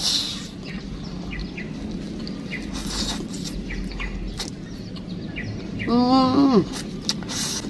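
Wet slurping and chewing of half-cooked instant fried noodles eaten with chopsticks, with short sharp slurps near the start, about three seconds in and near the end. About six seconds in comes a short voiced hum that drops in pitch at its end.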